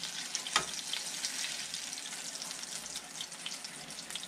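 Small mangrove snapper pieces sizzling and crackling in oil in a nonstick frying pan, with a slotted spatula scraping in the pan as pieces are lifted out and one sharp tap about half a second in.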